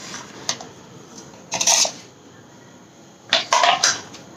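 A few sharp knocks and clicks over a low background hiss: a faint one about half a second in, a louder one about a second and a half in, and a quick cluster near the end.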